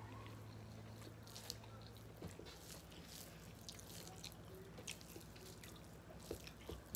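Quiet close-up eating sounds: fingers mixing rice and curry on metal plates and mouths chewing and smacking, heard as scattered soft clicks and wet squelches over a low steady hum.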